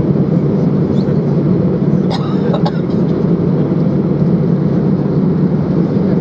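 Steady low cabin noise inside an Airbus A320-214 taxiing after landing, its CFM56-5B engines at idle thrust. A brief pitched sound cuts in about two seconds in.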